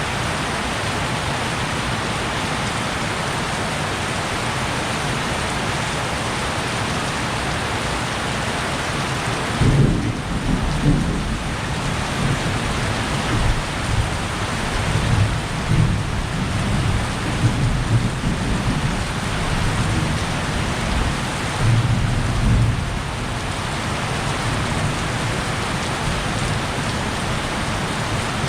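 Heavy rain falling steadily, with a long rumble of thunder starting about a third of the way in that swells several times for over ten seconds before dying away.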